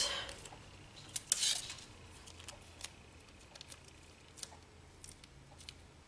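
Faint tabletop handling of craft supplies: scattered small clicks and ticks, with a short rustle about a second and a half in.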